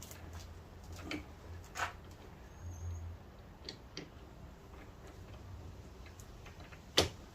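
Scattered small clicks and taps of plastic and metal parts being worked by hand inside a car door, fitting the door handle's rod clips, with one loud sharp click about seven seconds in.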